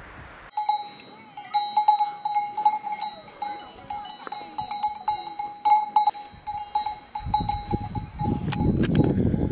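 Cowbells on grazing cows clanking irregularly, a ringing metallic tone struck again and again, starting about half a second in and fading near the end. Near the end a loud low rushing noise takes over.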